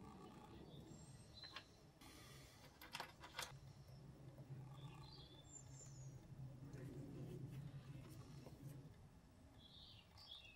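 Near silence: quiet room tone with a couple of light clicks about three seconds in and a few faint, short, high chirps later on.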